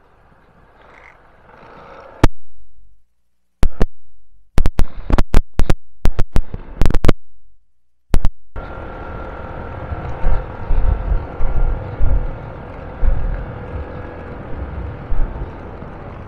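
A string of sharp clicks, each dying away into silence. Then, from about halfway, a motorcycle running along the road, with a low wind rumble on the microphone.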